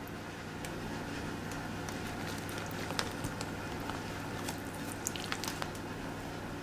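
Close-up kitchen handling sounds of a damp rice paper roll stuffed with lettuce, carrot, red cabbage and bulgogi being folded and wrapped by hand: soft squishes and crinkles with small scattered clicks, over a steady low hum.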